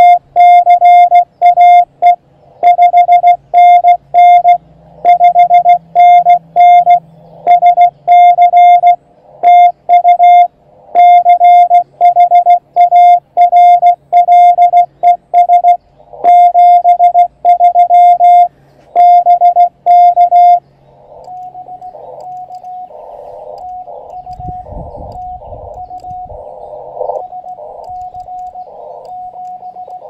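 Morse code (CW) tones from an Elecraft KX2 transceiver: a loud, clean keyed tone of dits and dahs for about twenty seconds. It then gives way to a fainter keyed tone at the same pitch over steady band hiss.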